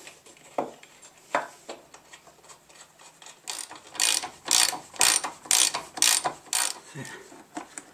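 Socket ratchet clicking through about seven quick strokes, two a second, as the rear brake caliper bolt is tightened, after a few scattered clicks and knocks.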